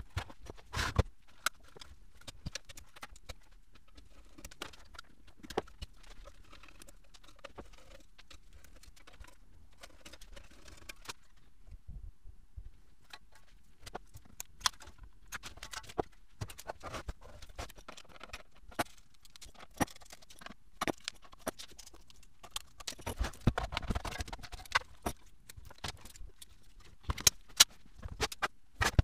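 Hand tools and small metal parts clicking and clinking during hand disassembly of a fiber laser's aluminium chassis and electronics: scattered sharp clicks and knocks, with a busier stretch of clatter about three-quarters of the way through.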